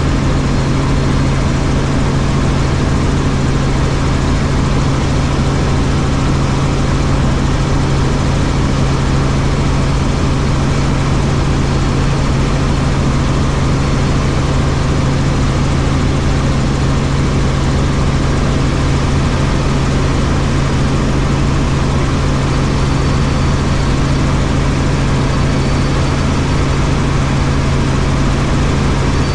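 Helicopter in flight: a steady, loud drone of rotor and engine with a strong low hum.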